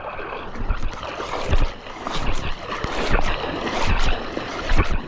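Irregular splashing and thumps as someone wades through shallow creek water.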